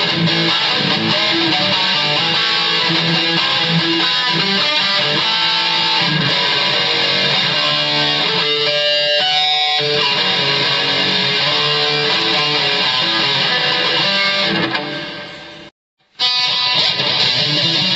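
Electric guitar played through a Boss ME-20 multi-effects pedal: a continuous run of changing notes and chords. The playing fades and cuts out briefly about three-quarters of the way through, then starts again.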